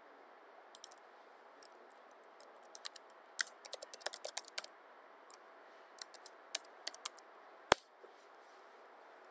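Computer keyboard typing: irregular runs of key clicks, quickest and densest around four seconds in, then one much louder single click near the end.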